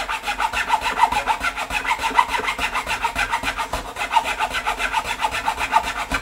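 Thin nut-slotting file sawing back and forth in a slot of a bone guitar nut, quick even strokes at several a second, deepening the slot to lower the string.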